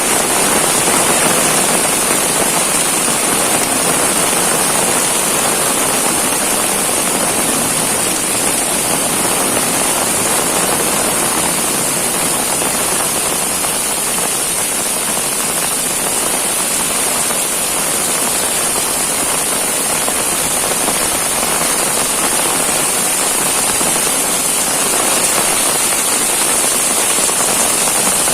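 Heavy rain pouring steadily, a dense even hiss of drops striking surfaces.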